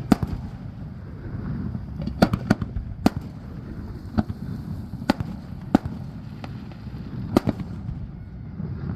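Fireworks display: aerial shells bursting in a string of sharp bangs at irregular intervals, some in quick pairs, over a steady low rumble.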